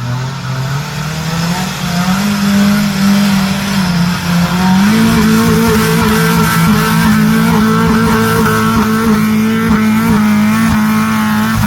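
Off-road vehicle's engine revving hard: the pitch climbs over the first couple of seconds, dips briefly, then holds high and steady under heavy throttle.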